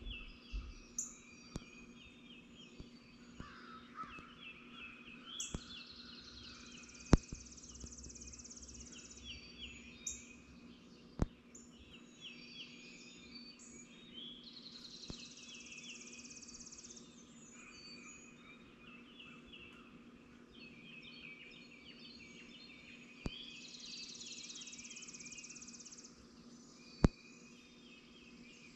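Birds singing in a morning chorus: many short repeated chirps and trills overlap, with a high buzzy song lasting about two seconds that comes back every eight or nine seconds. A steady low hum runs underneath, and a few sharp clicks stand out as the loudest sounds.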